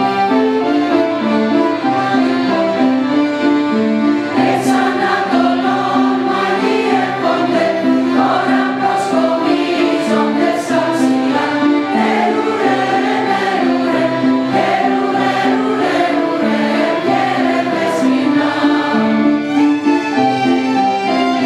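A mixed choir of adults and children singing a Greek Christmas song in unison, over instrumental accompaniment that keeps a steady pattern of held low notes.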